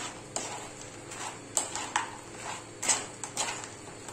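Metal spoon stirring and tossing sticky, sauce-coated fried potato fingers in a non-stick frying pan: scraping sweeps with several sharp clicks of the spoon against the pan.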